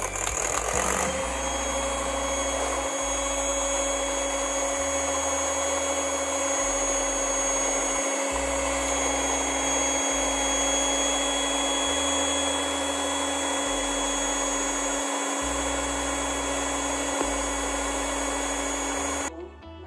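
Maspion electric hand mixer running at a steady speed, its beaters whipping a liquid milk mixture. The steady motor whine cuts off suddenly near the end.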